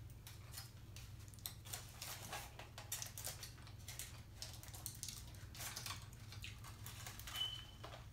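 Quiet close-up eating sounds: chewing and biting into a cheeseburger, with crinkling of its aluminium foil wrapper, as a string of small sharp clicks and crackles over a low steady hum. A short high squeak comes near the end.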